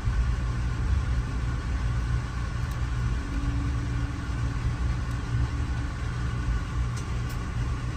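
A vehicle's engine running with a steady low rumble, without a break and without rising or falling.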